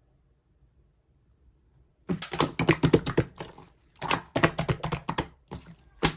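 Clear slime being squished and pressed by hand, giving clusters of quick crackling clicks and pops. They start about two seconds in, come in two long runs, then two short bursts near the end.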